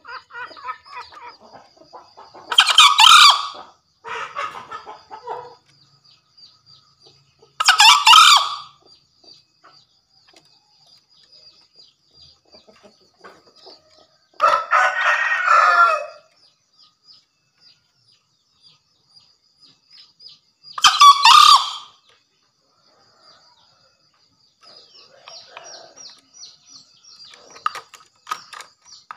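Male green junglefowl crowing: four short, harsh crows spaced about six seconds apart, the third one longer, with softer calls in between.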